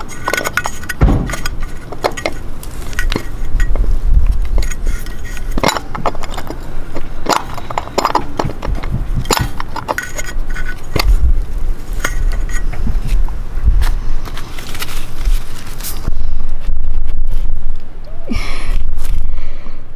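Small metal clicks, clinks and scrapes of a new grease cap being pressed by hand into a trailer wheel hub, which does not yet seat fully. A heavy low rumble of wind on the microphone runs underneath and is loudest in the last few seconds.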